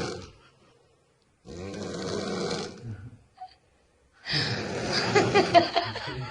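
A young woman snoring in her sleep: two loud snores a couple of seconds apart, the second with a rattling flutter.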